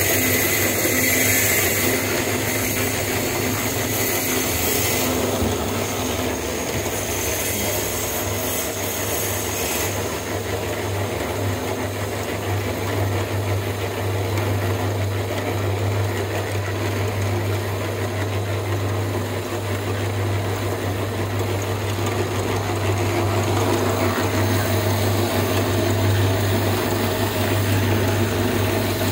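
A steady low machine hum under general building-site noise, with the higher hiss easing off about ten seconds in.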